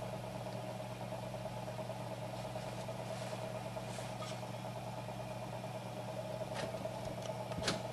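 Steady electrical hum with a higher whine over it, and a few light clicks near the end.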